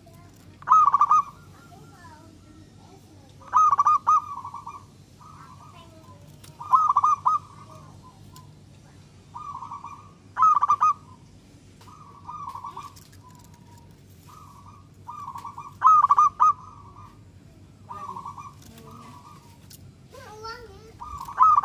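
Zebra dove (perkutut) singing its cooing song. Each phrase opens with a loud rapid burst of notes and trails into softer coos, and the phrases repeat every few seconds.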